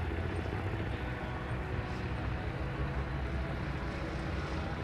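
Steen Skybolt biplane's piston engine and propeller running as the plane taxis, a steady low drone.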